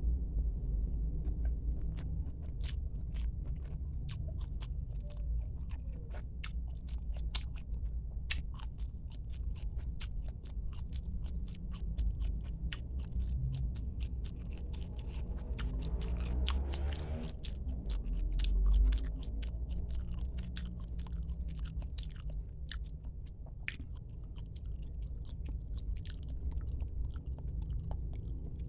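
A person chewing squid, with a dense run of small clicks and smacks from the mouth and a brief noisier stretch about halfway through.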